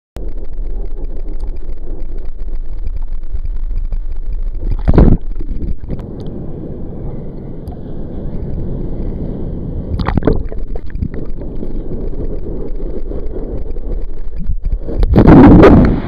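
Ocean water sloshing and gurgling around a microphone at the water's surface, with wind on the microphone. Three louder wave surges wash over it about five seconds apart, the last and loudest near the end.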